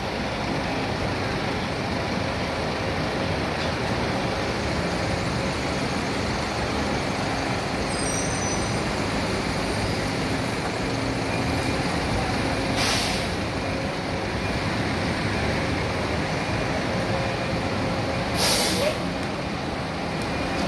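Busscar Vissta Buss coach's diesel engine running as it pulls in and comes to a stop. There are two short air-brake hisses, about thirteen and eighteen seconds in, and the second is the louder.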